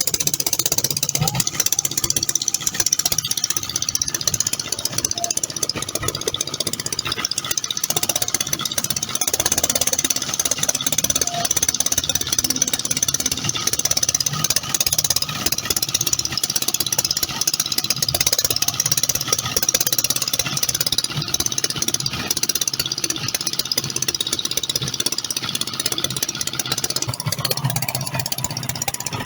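An engine running steadily for the whole stretch under a strong, even hiss.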